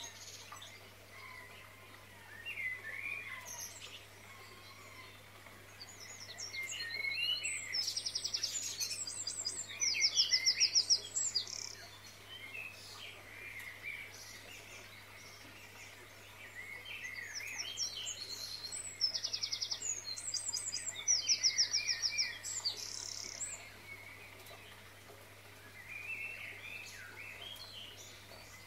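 Birdsong: several birds chirping, with fast trills in two spells that are the loudest moments. A faint steady low hum runs underneath.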